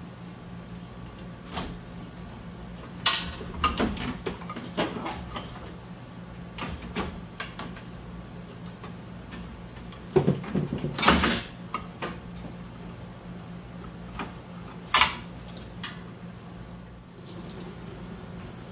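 Knocks and clatter as the old radiator of a 1999 Jeep Cherokee XJ is worked loose from its rubber bottom bushings and lifted out. Sharp knocks come about three seconds in, a dense cluster around ten to eleven seconds, and a single sharp knock near fifteen seconds, over a steady low hum.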